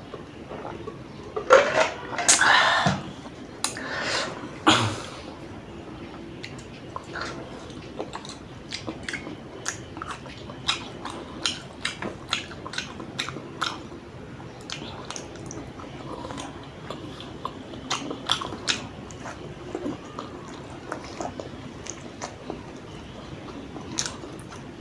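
Close-miked eating: noodles chewed and slurped, with many small wet clicks from the mouth. A few louder noisy sounds come in the first five seconds, just after a drink from a bottle.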